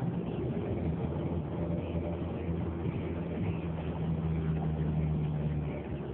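Car engine humming steadily with tyre and road noise, heard from inside the cabin; the engine note eases off just before the end.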